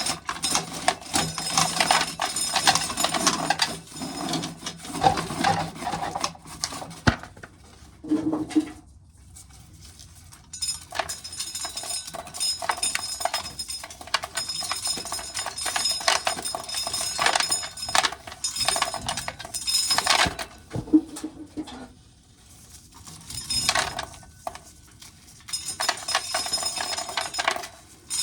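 Dry corn being shelled off the cob, the kernels rattling and clinking into a pail and a tin can in long bursts, with short pauses between cobs.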